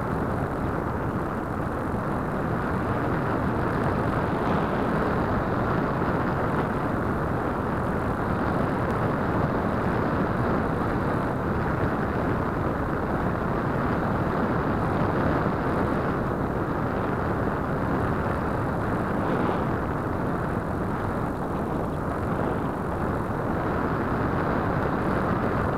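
Steady rush of airflow over the onboard keychain camera's microphone on a Radian RC motor glider in flight, an even noise with no clear motor whine.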